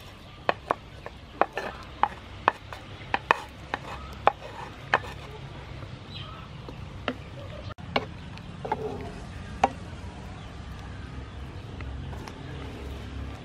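Wooden spatula and board knocking and scraping against a frying pan as fish balls are tipped into boiling water and stirred: a quick run of sharp knocks and clicks in the first five seconds, a few more about eight to ten seconds in, over a low steady rumble.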